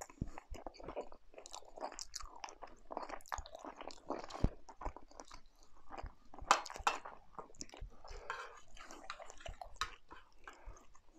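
A man chewing a mouthful of chicken curry close to the microphone, with a metal fork clinking and scraping in a metal serving dish; the sharpest clinks come about four and a half and six and a half seconds in.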